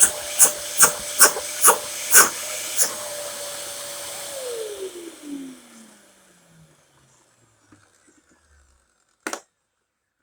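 Dyson upright vacuum cleaner running with a steady motor whine and seven short bursts of rushing air in the first three seconds. After about four seconds it is switched off, and the motor winds down, falling in pitch and fading out. A single sharp click comes near the end.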